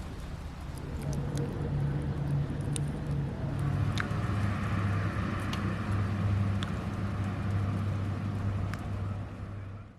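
A vehicle engine running steadily as a low drone, its pitch stepping down about a second in, with a few scattered clicks.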